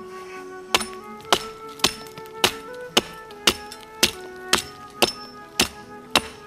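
Hatchet chopping into a snow-covered pine log, about two strikes a second, each a sharp knock, as it cuts away bark to reach the fatwood. Background music plays underneath.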